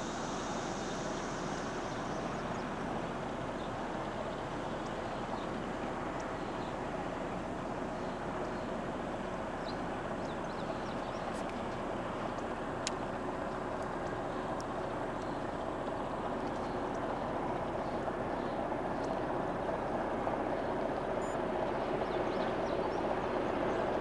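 Train rolling past, a steady rumble and rush of wheels on the rails that grows slightly louder near the end.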